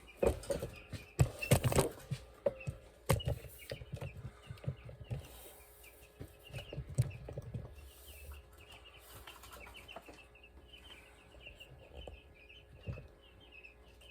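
A flock of week-old meat chicks peeping, a quick run of short high chirps that never stops. A few loud knocks and clatters come in the first three seconds.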